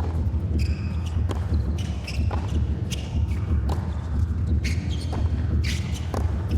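Indoor tennis rally: the ball is struck and bounces about once a second, with shoes squeaking on the hard court between shots, over a steady low hum of the hall.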